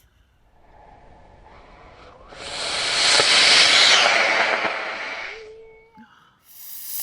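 Model rocket motor igniting a couple of seconds in and burning with a loud hiss for about three seconds, fading as it ends. A second rushing hiss starts near the end.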